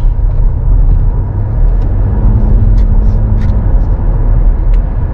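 A car being driven, heard from inside the cabin: a steady low rumble of engine and road noise with no sudden events.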